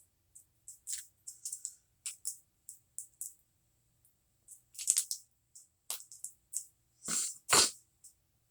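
A string of short crackles and clicks, about fifteen of them, from close-miked handling of a honey-butter packet and a biscuit. The loudest come about five seconds in and again near the end.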